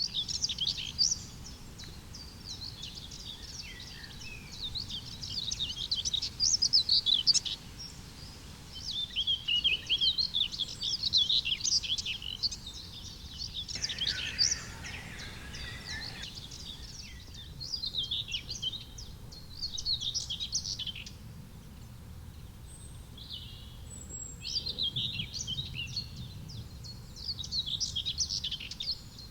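Common whitethroat singing: a series of short, rapid warbling phrases every few seconds, with a brief rush of noise about halfway through.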